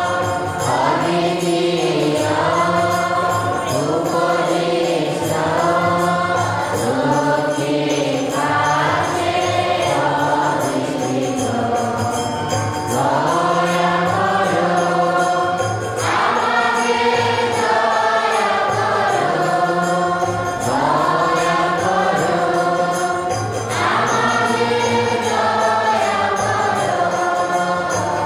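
Choir singing a church hymn, melodic sung phrases of a few seconds each over a steady low note.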